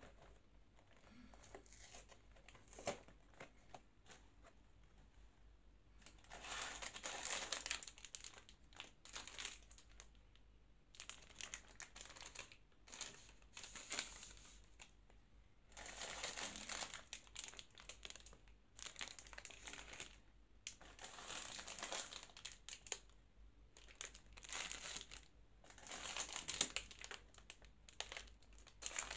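Plastic wrappers of Magnum Mini ice cream bars crinkling as they are taken out of their cardboard box and handled. The crinkling comes in repeated bursts separated by quiet handling.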